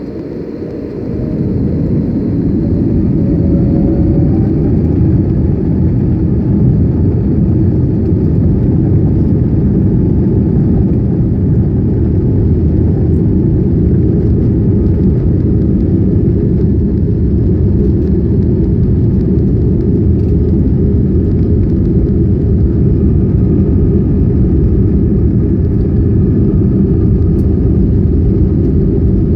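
Airbus A321neo jet engines at takeoff power: a loud, steady rumble that swells about a second in, with a faint whine climbing in pitch over the next few seconds.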